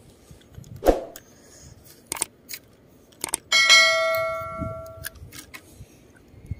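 A click, then a single bright bell-like ding that rings on and fades away over about a second and a half. This is the click-and-notification-bell sound effect of a subscribe-button animation. A few fainter clicks and knocks come before it.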